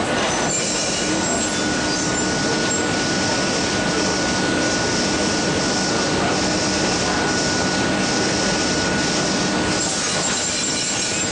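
Industrial laundry machinery, flatwork ironers and presses, running: a steady mechanical din with a constant high-pitched whine.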